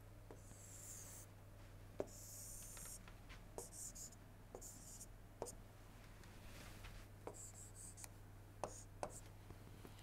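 Faint writing sounds of a stylus on a large interactive touchscreen display: short scratchy strokes and a handful of light ticks as the pen touches down, spread through an otherwise near-silent stretch.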